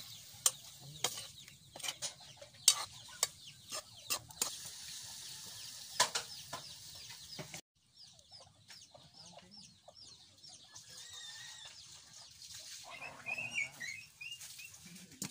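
Metal spoon clinking and scraping against a steel wok as meat is stirred, a run of sharp clicks through the first half. After a break, quieter, with chickens clucking about two seconds from the end.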